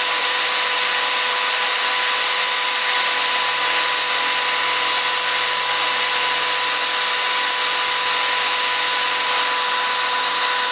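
Electric drill running steadily with a constant whine, its bit held pressed down against a phone's cracked glass screen.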